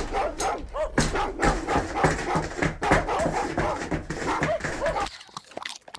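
Dogs barking and yelping in a fast, continuous run of short calls that stops abruptly about five seconds in.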